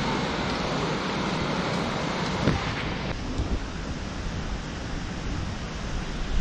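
Steady rushing of a mountain stream, with a single short tap about two and a half seconds in; the rush drops a little at a cut about three seconds in.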